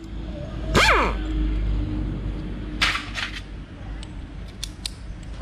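Workshop handling noise from a motorcycle engine being taken apart: sharp clicks and clinks of metal parts. About a second in there is a short loud burst that slides in pitch, and near three seconds a brief hiss.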